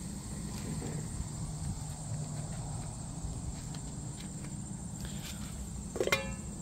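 Crickets chirping in a steady high trill over a low rumble. About six seconds in there is a single sharp metal clink with a short ring as the aluminium pot lid is taken hold of.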